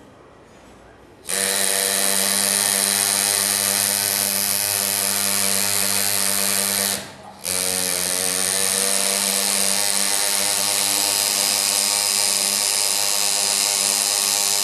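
Pneumatic engraver's handpiece buzzing steadily as its graver cuts into a Harley-Davidson engine cover. It starts a little over a second in, stops for a moment about halfway, and then runs on.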